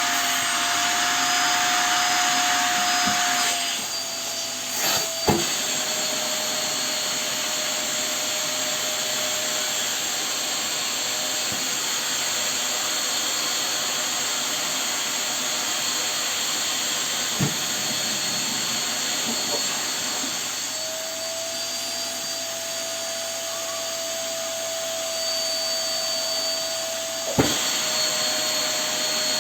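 Vacuum cleaner running steadily, a high motor whine over a rush of air. The whine drops slightly in pitch a few seconds in and rises again about two-thirds of the way through, with three sharp knocks along the way.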